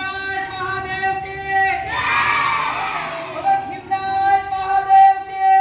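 A crowd of children shouting together in turn with a steady, unwavering pitched note that sounds twice, each time for about two seconds.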